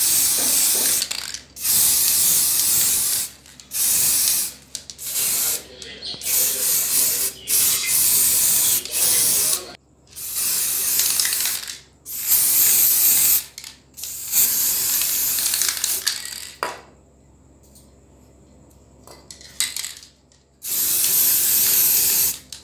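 Silver spray paint hissing in repeated bursts of about one to two seconds, with short pauses between them and a longer pause of a few seconds near the end.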